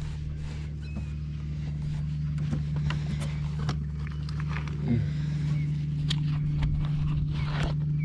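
A boat motor running steadily with a low, even hum, with scattered light clicks and knocks over it.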